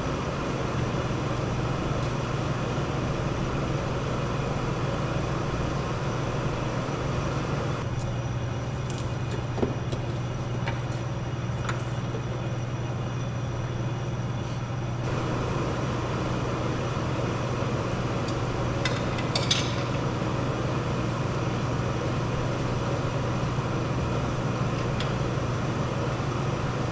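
Steady mechanical hum of a running machine, with a few light metallic clinks about ten seconds in and again near twenty seconds.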